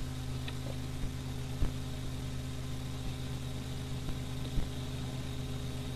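Steady low hum with even hiss underneath, the background noise of an old recording, broken by a few faint clicks.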